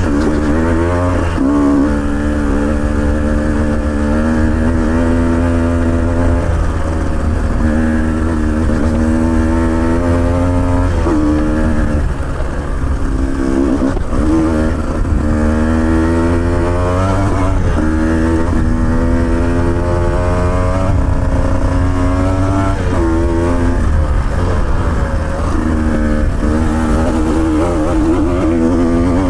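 Off-road motorcycle engine under way, its pitch climbing and then dropping every few seconds as the throttle opens and closes on a rough trail, over a steady low rumble.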